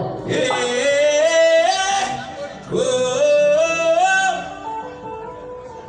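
A singer vocalising long held notes over music through a PA system during a sound check: two wordless phrases, each climbing in pitch over about two seconds, then lower sustained notes near the end.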